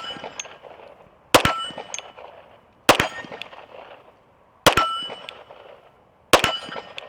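Staccato P 9mm pistol firing four single shots about a second and a half apart. Each shot is followed almost at once by the clang of the bullet striking a steel target, which rings briefly.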